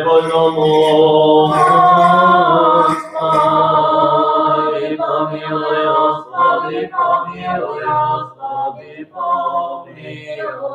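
Unaccompanied Orthodox liturgical chant sung during a panikhida (memorial service). It opens with long held notes, then breaks into shorter phrases about halfway through.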